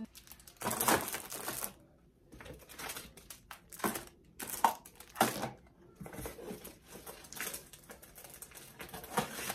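Plastic packaging crinkling and rustling as items are handled and packed into a cardboard box. The longest rustle comes about half a second in, and a few sharp clacks follow around the middle as things are knocked or set down.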